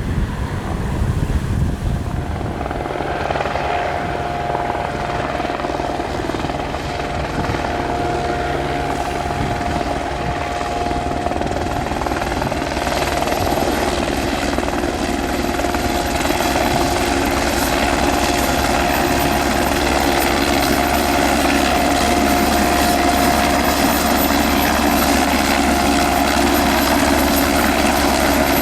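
Aerospatiale AS355F2 Ecureuil 2 twin-turbine helicopter running, its rotor and engines growing gradually louder. A thin, high turbine whine comes in about halfway through.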